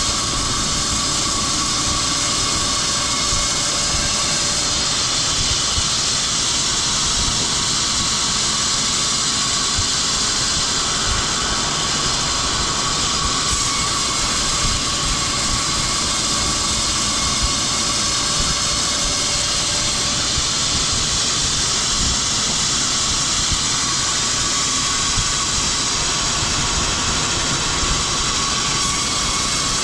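Woodworking machinery in a board factory running steadily: a continuous loud noise with a faint steady whine.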